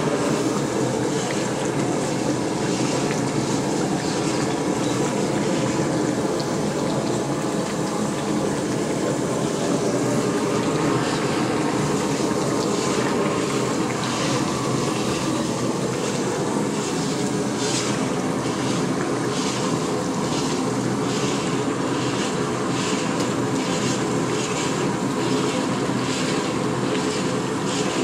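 Steady roar of a gas burner under a large iron kadhai, with the grainy mixture in it sizzling and bubbling. From about halfway through, a long-handled spatula scrapes across the iron pan in regular strokes, about two a second.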